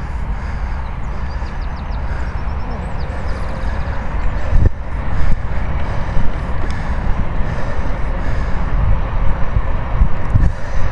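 Wind buffeting the microphone of a handlebar camera on a moving e-bike, a steady low rumble with gusty swells, with a knock from a jolt about four and a half seconds in. A few faint bird chirps sound about one to three seconds in.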